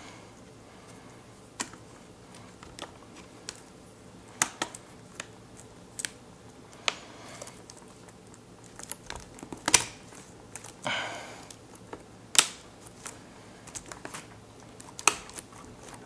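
Irregular, sharp clicks as fingers press down across the Lenovo Yoga 13's keyboard, seating it so its retaining clips catch. There is a brief rubbing rustle about eleven seconds in.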